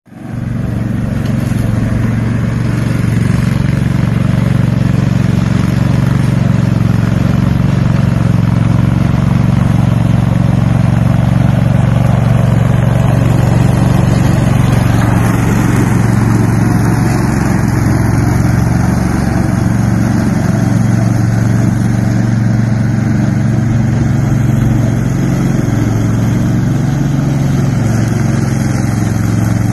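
Engine of a walk-behind commercial lawn mower running steadily at a constant speed, with no break.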